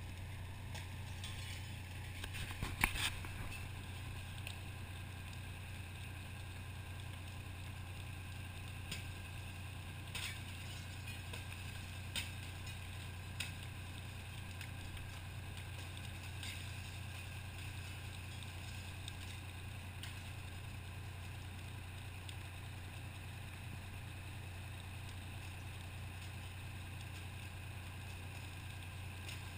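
Fire engine's engine running steadily at the pump, a constant low drone while it feeds the charged supply hoses. A few sharp clicks are heard about three seconds in, and again a few times later on.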